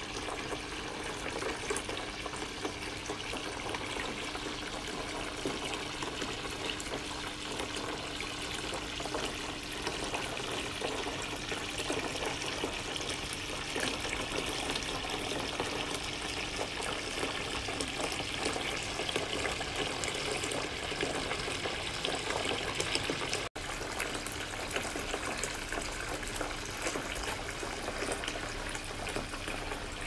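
Steady running and splashing water, like a fountain or small waterfall, with a split-second break about three-quarters of the way through.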